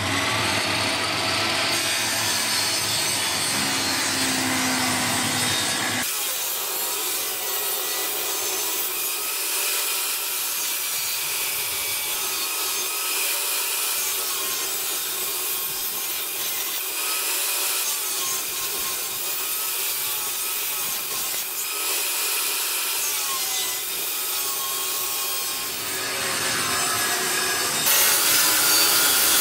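Table saw ripping a wooden strip: a steady, loud rasping noise of the blade cutting through wood. The sound changes abruptly about six seconds in and again near the end.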